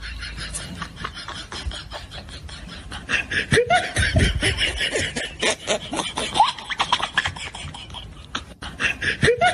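Fast, dense clicking throughout, with laughter-like voice sounds joining and getting louder about three seconds in.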